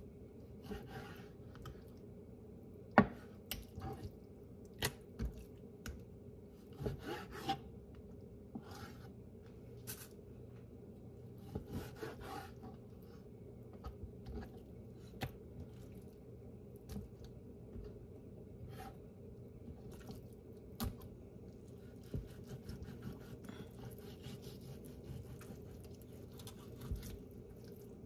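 Knife slicing raw chicken breast on a plastic cutting board: scattered taps and knocks of the blade on the board with soft rubbing between them, the loudest knock about three seconds in, over a steady low hum.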